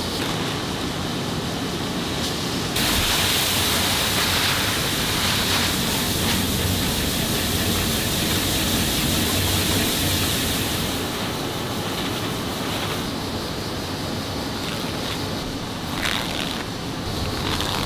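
High-density polyethylene resin pellets pouring into a hopper, a steady rushing hiss over the hum of factory machinery, from about three seconds in until about eleven seconds in. After that only the machine hum remains, with a few short rustles of paper resin sacks being opened near the end.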